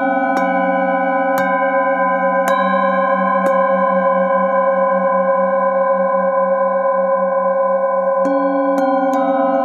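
Metal singing bowls struck with a wooden mallet: four strikes about a second apart, a pause, then three quicker strikes near the end. The notes ring on and pile up into a sustained chord, its lowest tone pulsing slowly.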